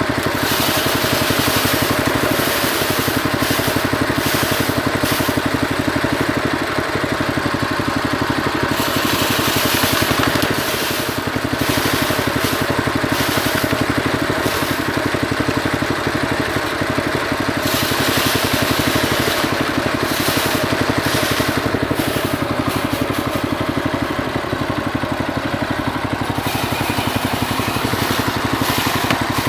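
Small engine running steadily to drive a homemade rice thresher. Long stretches of higher rushing noise come and go over it.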